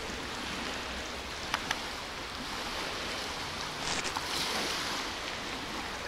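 Steady wash of wind and small waves lapping on a shallow bay shore, with two light clicks about a second and a half in.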